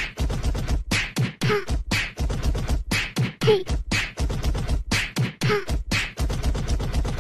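Background music with a steady, busy beat and a short vocal sound falling in pitch about once a second.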